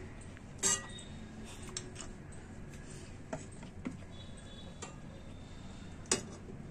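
A few light clinks and taps of a steel ladle and a glass bowl as dal is served and the bowl is set on a plate, the loudest clink about half a second in.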